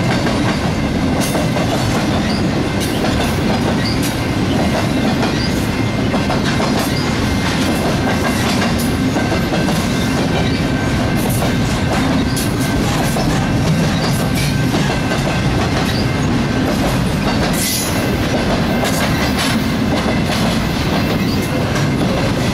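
Double-stack intermodal freight train cars rolling past: a steady, even rumble of steel wheels on rail with scattered clicks as the wheels cross rail joints.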